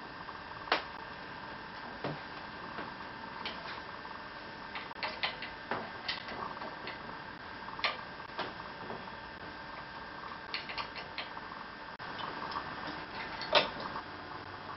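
Hand tools clicking and clinking on steel as nuts are worked on a James autocycle's front fork assembly. Scattered sharp clicks come, some in quick little runs, with a louder clink about a second in and another near the end.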